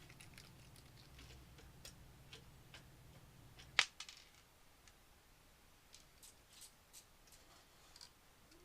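Faint scattered clicks and ticks of small computer parts and a screwdriver being handled inside a PC case, with one sharp click about four seconds in. A low hum stops just after that click.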